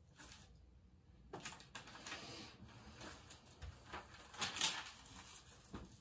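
Paper pages of a notepad rustling as they are flipped and handled, in a run of crinkles that starts about a second in and is loudest just past the middle.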